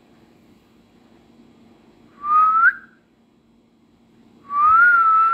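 Two clear whistles, each rising in pitch: a short one about two seconds in, and a longer one near the end that rises, dips slightly and rises again.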